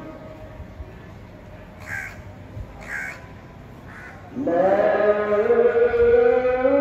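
A house crow cawing three times, about a second apart. About halfway through, a distant call to prayer (azan) starts up: a long, held chanted voice that rises slowly and is louder than the caws.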